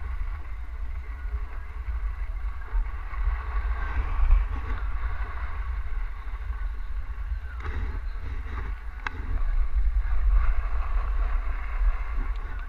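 Wind buffeting a helmet-mounted GoPro's microphone with a steady low rumble while skiing downhill, over the hiss and scrape of skis sliding on packed snow.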